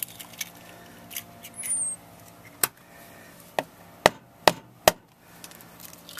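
A raw egg being tapped to crack it open: five sharp knocks, the last three quick and loudest.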